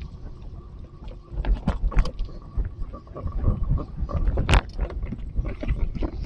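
Wind buffeting the microphone as uneven low rumbling, with several sharp knocks and clicks, the loudest about four and a half seconds in.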